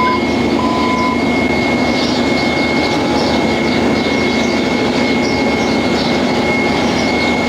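Forklift running with a steady mechanical drone and a constant high whine, its warning alarm beeping a couple of times in the first second.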